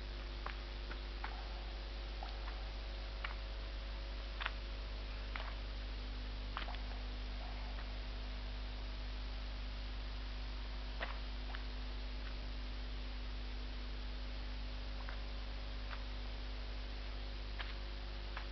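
Steady electrical hum with about a dozen faint, irregularly spaced clicks, the loudest about four and a half seconds in.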